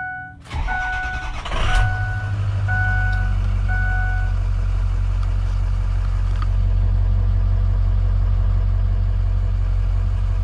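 2006 Ford F450's 6.0 Power Stroke turbo diesel cranking briefly and starting, then settling into a steady idle, heard from inside the cab. The dash warning chime beeps about once a second over the start and stops a few seconds in.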